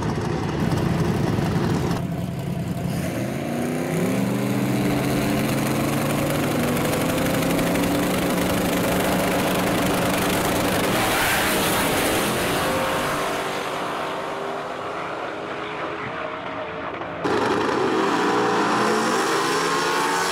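Drag-racing car engines at high revs: a burnout at first, then engines revving and pulling away with pitch climbing as the cars accelerate. There is a quieter stretch past the middle, then a sudden loud return with rising revs near the end.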